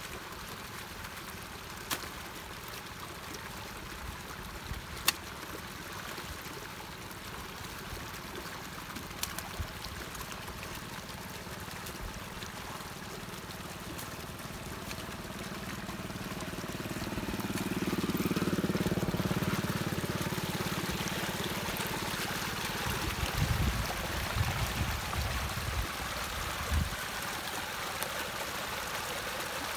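Muddy ditch water flowing and gushing through a culvert cleared of its clog, a steady rushing that swells about halfway through. A few sharp clicks sound in the first seconds, and low thumps come near the end.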